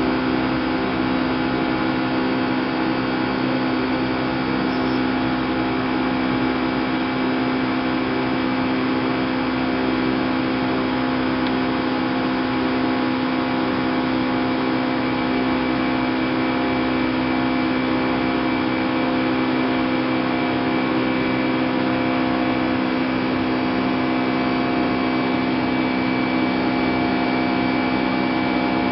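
Boeing 757-200 jet engines and airflow heard inside the airliner's cabin during the climb after takeoff: a loud, unbroken drone with several steady hum tones.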